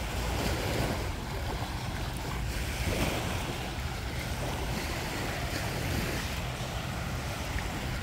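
Sea surf breaking and washing up a sandy beach in swells of steady rushing noise, with wind rumbling on the microphone.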